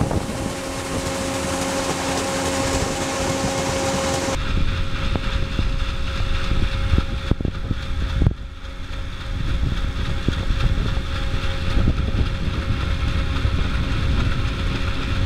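River tour boat running underway: a steady engine drone with a held hum, mixed with wind noise on the microphone. About four seconds in the hiss drops away, leaving a lower, gusty rumble.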